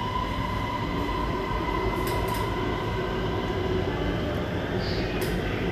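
Inside the carriage of a Bangkok MRT Blue Line metro train running between stations: a steady rumble of the moving train with a thin steady whine over it.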